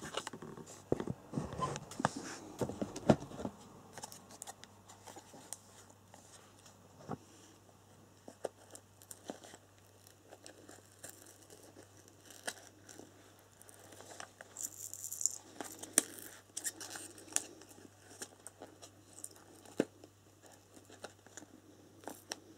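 Cardboard box and plastic packaging being handled: scattered rustling, crinkling and small clicks and knocks, busiest in the first few seconds and again about two-thirds of the way through.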